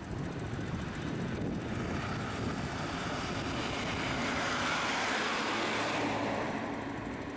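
Diesel engine of a Lanka Ashok Leyland bus driving past close by, its engine and road noise swelling to a peak about five seconds in and then fading as it moves away.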